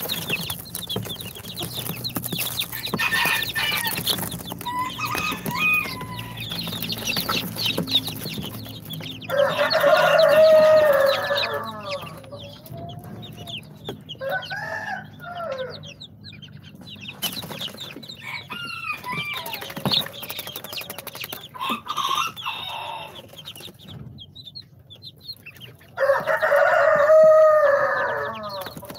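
Baby chicks peeping, with many short, high chirps. A rooster crows twice, once about ten seconds in and again near the end, each crow long and louder than the chicks.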